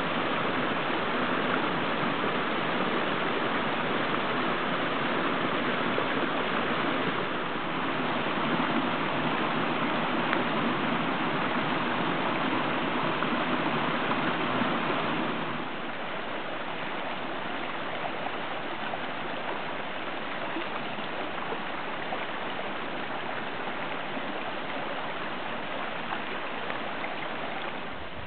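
Rain runoff water pouring and splashing over a small rock ledge in a woodland stream, a steady rush of water. About halfway through it changes suddenly to a quieter, steady flow of shallow runoff streaming down a channel.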